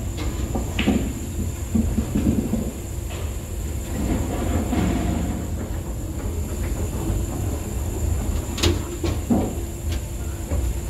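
A QubicaAMF Edge string pinspotter resetting the pins after a strike, over a continuous low rumble of lane machinery. Sharp clacks of pins and machine parts sound about a second in and twice more near the end.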